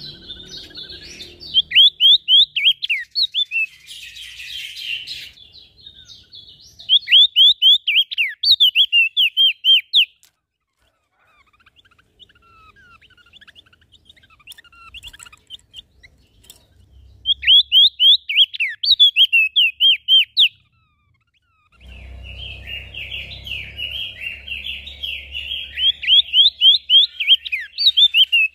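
Small songbird singing in repeated bursts of rapid, sharply falling whistled notes, each burst lasting two to three seconds with pauses between. In the last quarter a rustling noise with a low rumble runs under the song.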